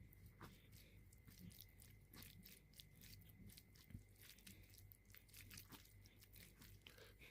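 A person chewing food close to the microphone: many small, quick crunchy clicks.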